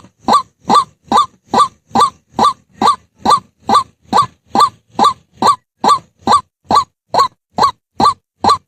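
White-breasted waterhen calling: one short note repeated steadily, a little over two a second, each note rising in pitch.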